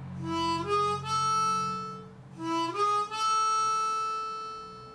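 Diatonic harmonica in A playing a short rising three-note phrase, 3 blow, 3 draw, 4 blow, twice; the top note is held longer the second time.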